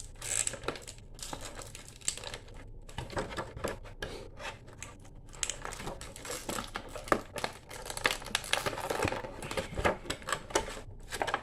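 Plastic toy packaging being handled: crinkling and clicking as small action-figure accessories are worked free from the tray, in a string of irregular clicks and rustles.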